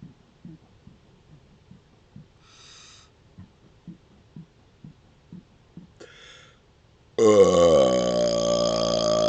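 A man gulping air in small, regular swallows, about two or three a second, with two short breaths. About seven seconds in comes a sudden, long, loud burp whose pitch drops at first and then holds.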